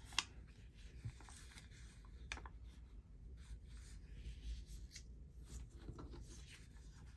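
Faint rustling and light taps of paper scraps being sorted and handled, a few scattered strokes over a low steady room hum.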